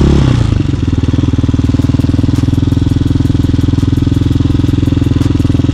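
Hawk 250 dirt bike's single-cylinder four-stroke engine in first gear. The revs drop in the first half-second as the throttle closes, then the engine runs steadily at low revs with an even pulsing beat.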